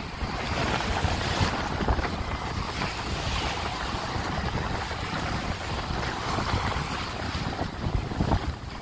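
Small waves breaking and washing up on a sandy beach, with wind buffeting the microphone and a steady low rumble.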